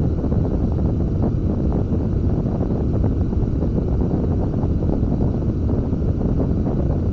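Wind buffeting the camera's microphone aboard a catamaran under sail: a steady, loud, low rumble with no let-up.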